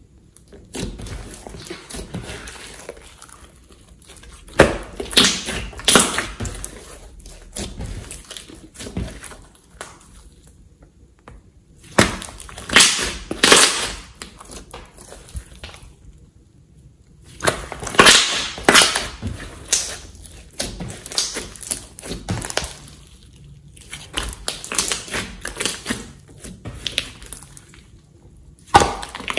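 Soft slime being squeezed and pressed by hand, giving wet squishing with quick crackling pops of trapped air. It comes in several bursts separated by short pauses.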